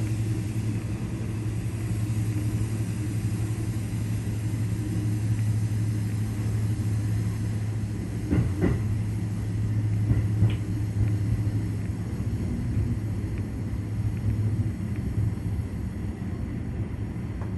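Keikyu electric train running slowly, heard from inside the front of the train: a steady low rumble and hum from the running gear, with two short sharp clacks about halfway through.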